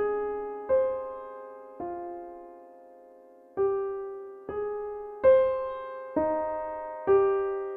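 Calm music: a slow melody of single soft keyboard notes, each struck and left to ring and fade, with a longer pause near the middle.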